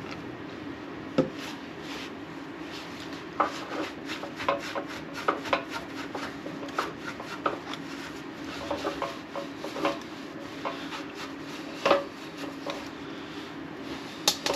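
Irregular scraping, rubbing and small knocks of hand cleaning on a motorcycle fuel tank's petcock mounting face, scrubbed with gasoline before the petcock goes back on.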